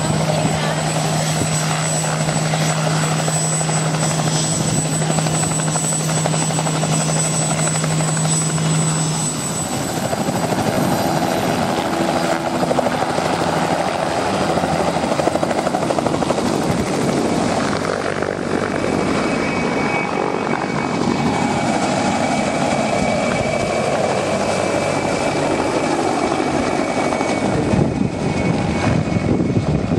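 Light helicopters flying low past, their rotors and engines sounding continuously. A steady low drone stops about nine seconds in and gives way to rotor noise, and a thin high whine comes in about twenty seconds in.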